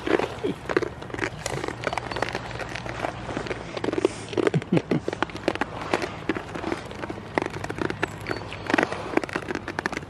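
Goats crunching and chewing treats taken from a hand, a dense, irregular run of crackling clicks.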